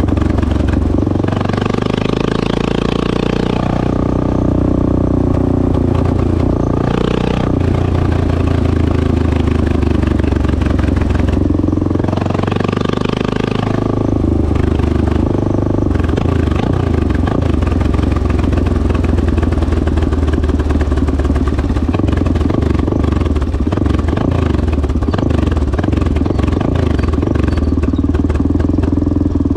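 1986 Honda XL600R single-cylinder four-stroke engine running through a stainless Devil exhaust, its pitch rising and dropping several times in the first half, then holding steady.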